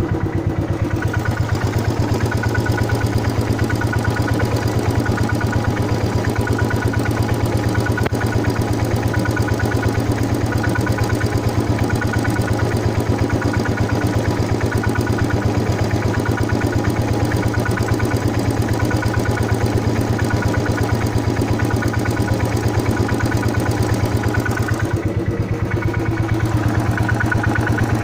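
Royal Enfield Thunderbird 350 Twinspark single-cylinder engine idling steadily, with a short high tone coming and going about once a second over its even beat. This is the weird sound the owner cannot explain and worries about, though the service centre calls it normal.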